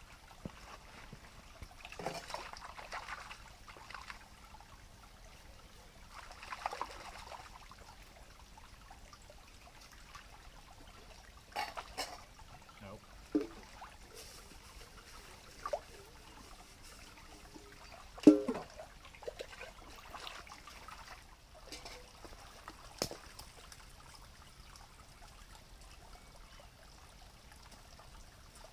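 Water splashing and trickling as a cooking pot is rinsed out by hand in a shallow stream, with several sudden louder splashes or knocks, the loudest a little past the middle.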